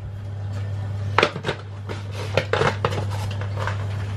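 Kitchen clatter: a few light clinks and knocks of kitchenware over a steady low hum.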